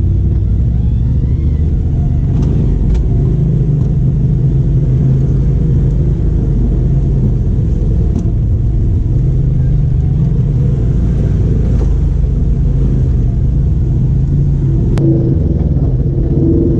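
Polaris RZR side-by-side's engine running with a steady low rumble as it crawls over a tricky stretch of rough trail, with a few short knocks from the vehicle going over the ground.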